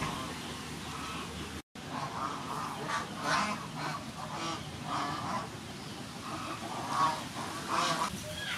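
Farmyard poultry calling repeatedly, short honking calls about once a second, over steady background noise. The sound cuts out completely for a moment about two seconds in.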